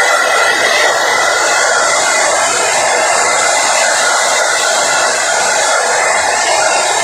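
Handheld hair dryer running steadily, blowing air onto a dog's fur: an even rush of air with a faint steady whine.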